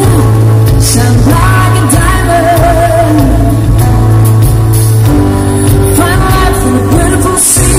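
A live pop-rock band plays loudly through a stage PA, with a lead singer over bass, guitars and keyboards. The bass holds a long low note, then changes about five seconds in.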